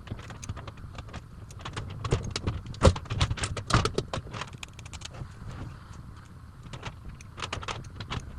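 Close handling noise from hands working at a wig: a run of small clicks and crackles, busiest and loudest in the middle, with a smaller flurry near the end.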